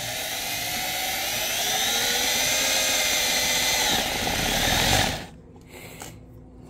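Cordless drill with a 5/16 hex driver sinking a self-tapping screw into a metal bike frame, its motor whining steadily under pressure. The pitch dips briefly about four seconds in, and the drill stops about five seconds in.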